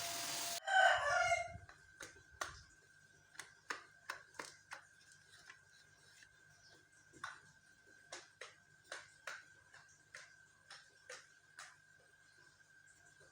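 A running motor stops abruptly just after the start, then a rooster crows briefly. Scattered light clicks and taps follow over a faint steady high hum.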